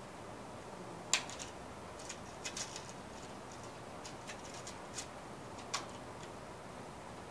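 A handful of sharp, irregular clicks and taps, the loudest about a second in, as a paper reference photo and its clip are fixed to the top of a drawing board on an easel.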